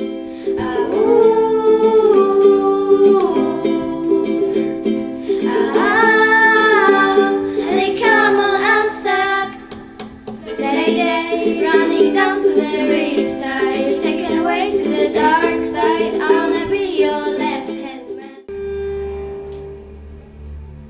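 A voice singing long, wavering notes over plucked-string accompaniment. Near the end it cuts abruptly to a different piece with low sustained notes.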